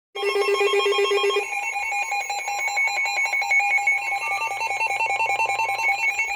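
Loud electronic alert tone: a rapid trill on several pitches at once, with the lowest pitch dropping out about a second and a half in.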